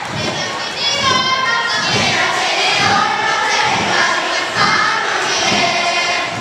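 Children's kapa haka group chanting in unison, their massed voices loud and pitched, with low thuds from the performers under the voices.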